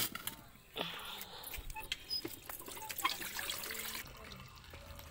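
Water running from a cloth-covered spout and splashing into an aluminium basin as it fills, starting about a second in after a brief clink of the basin.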